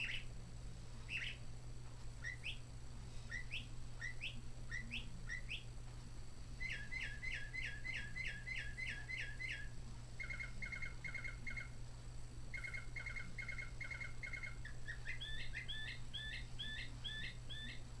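Recorded bird song from a Mark Feldstein National Audubon Society quartz singing bird clock, in its lower-pitched, slower version, played through the clock's small speaker. A run of short rising whistles comes first, then fast repeated chirps, then bursts of quick notes. Near the end there is a series of rising-and-falling notes.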